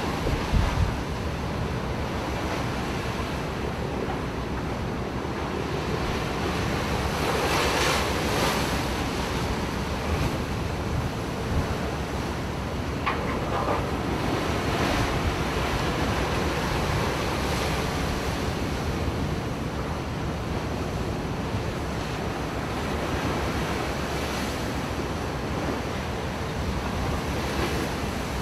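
Strong storm wind blowing across the microphone over the rush of heavy breaking seas, with a few low knocks about half a second in.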